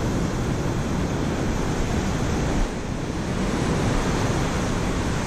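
Ocean surf breaking and washing up the sand, with wind rumbling on the microphone.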